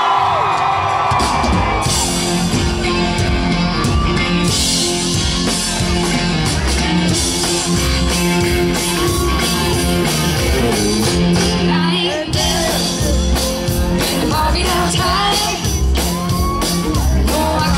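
Live band playing amplified rock music with drums, bass and guitars, the full band coming in about a second in and then keeping a steady beat.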